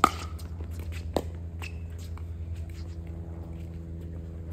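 Pickleball rally: a sharp pop of paddle on ball right at the start and a second pop about a second later, with light footsteps and small scuffs on the hard court in between, over a steady low hum.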